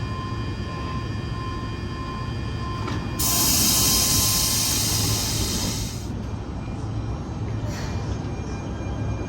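MI 09 double-deck electric multiple unit running with a steady low rumble and faint steady whining tones. About three seconds in, a loud burst of compressed-air hiss lasts about three seconds and cuts off suddenly, followed by a brief weaker hiss about a second and a half later.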